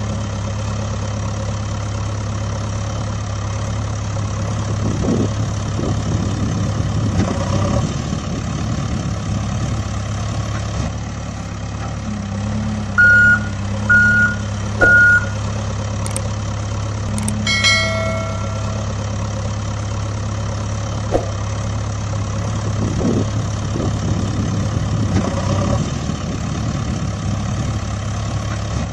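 Heavy truck engine idling steadily, with three short reversing beeps about halfway through.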